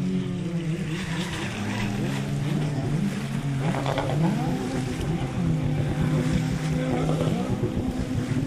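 Motorized watercraft running at speed, the engine pitch rising and falling over and over, with more than one tone gliding at once.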